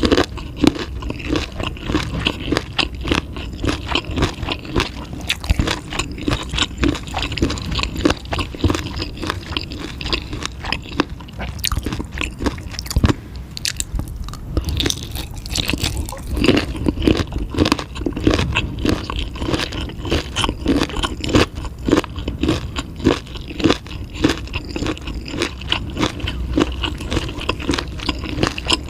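A person chewing and biting chewy food, with a dense run of small crunching and wet clicking sounds, slightly quieter for a couple of seconds midway.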